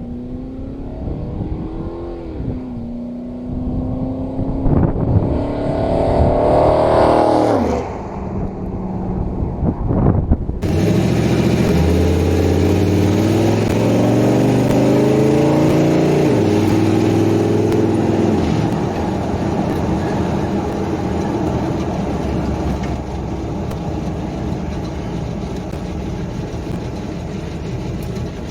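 Chevrolet 402 big-block V8 in a 1964 C10 pickup, revving up with a rising pitch over several seconds and then dropping back. Then it runs hard under load, its pitch stepping and sliding, before settling to a fainter, steady running sound.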